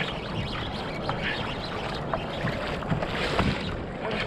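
Wind on the microphone over water washing around a kayak, with a few short clicks and knocks.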